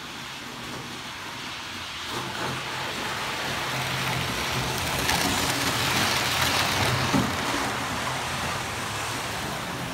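Model train running at speed behind an old Fleischmann class 50 steam locomotive: a steady rolling rattle of wheels on track with a low motor hum. It grows louder as the train passes close, loudest about five to seven seconds in, then eases off.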